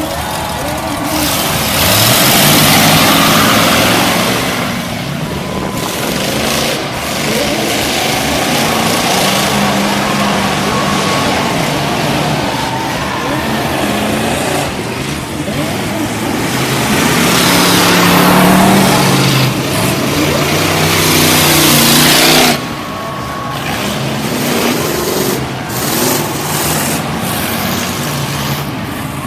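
Race car engines running hard around a dirt oval, swelling loudly as cars pass close by, once about two seconds in and again around the eighteen-to-twenty-two-second mark. The sound drops off suddenly about twenty-two seconds in.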